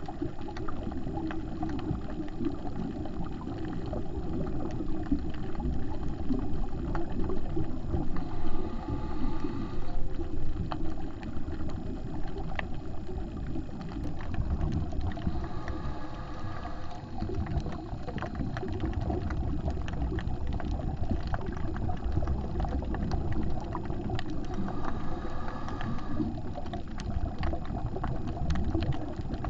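Underwater sound of a diver's scuba regulator, heard through a camera housing: a steady gurgling rumble of exhaled bubbles, with a hissing inhalation returning about every eight seconds. Scattered sharp clicks run through it.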